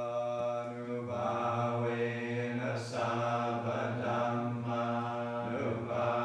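A group of Thai Forest Buddhist monks chanting in unison on one steady low pitch, the chant growing fuller about a second in.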